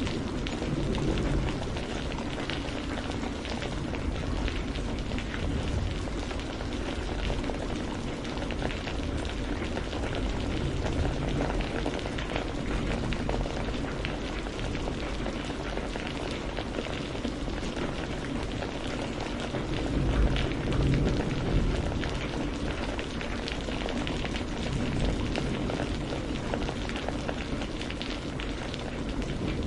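Steady heavy rain falling, a dense patter of many drops, with a low rumble that swells about twenty seconds in.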